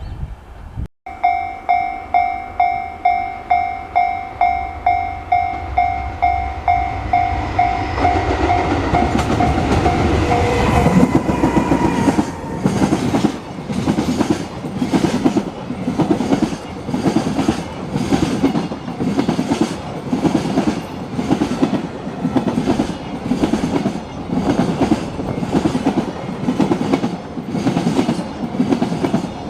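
Japanese level-crossing warning bell ringing in a fast, steady repeating pattern, then drowned out about ten seconds in as a train arrives. The train passes over the crossing, its wheels clacking over the rail joints in a steady rhythm.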